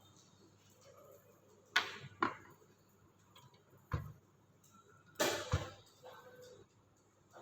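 Several sharp clicks and knocks from small hard objects, coming irregularly about a second or two apart.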